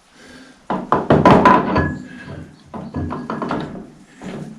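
Metal-on-metal knocks and clanks with brief ringing, from the bull pinion shaft and bearing of a 1955 Fordson Major tractor being worked into the housing by hand. They come in two clusters: a busy one starting about a second in, and a shorter one about three seconds in.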